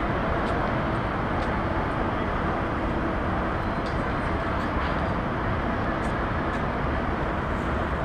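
Steady outdoor background noise: an even hiss and low rumble with no clear single source, and a few faint ticks.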